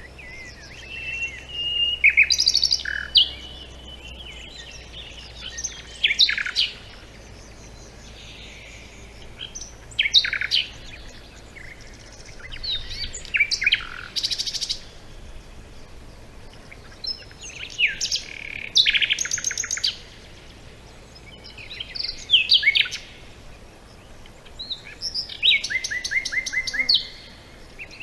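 A songbird singing short, varied phrases of trills and quick whistled sweeps, a new phrase every three to four seconds.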